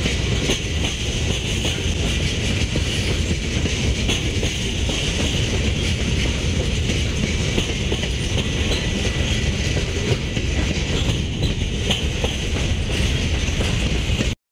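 A long freight train's cars, covered hoppers and centerbeam flatcars, rolling past with a steady rumble of steel wheels on the rails. The sound cuts off abruptly at the very end.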